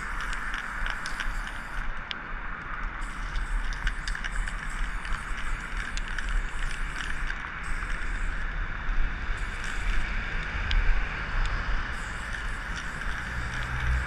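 Aerosol spray paint can hissing as red paint goes onto a concrete pillar, with short breaks where the nozzle is let go, over a steady hum of city traffic.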